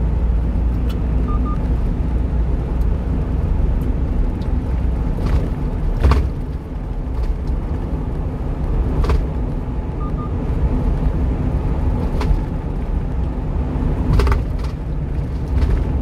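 Steady low rumble of engine and tyre noise inside the cab of a one-ton refrigerated box truck driving on the expressway, with a few sharp knocks, the loudest about six seconds in.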